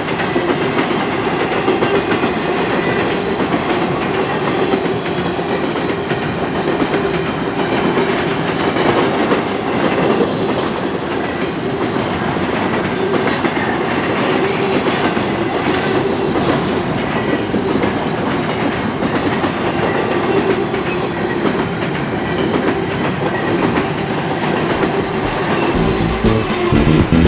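Canadian Pacific freight train rolling steadily past, its wheels clicking over the rail joints. Music comes in near the end.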